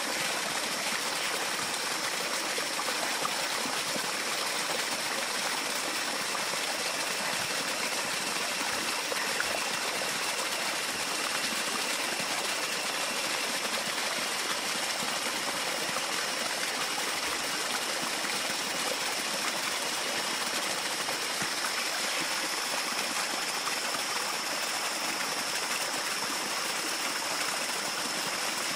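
Steady rushing of flowing water, with a thin, steady high-pitched tone above it.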